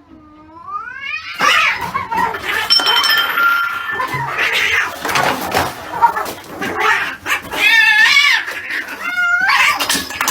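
Domestic cats caterwauling in a fight: long, wavering yowls, one at the start and two more near the end, with harsher, noisier cries between them.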